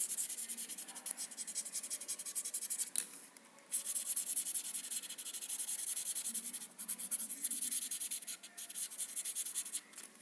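Felt-tip marker scribbling rapidly back and forth on paper, colouring in an area, with a short pause about three seconds in.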